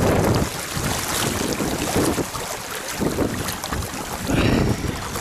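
Rushing river water, with wind buffeting the microphone in uneven gusts.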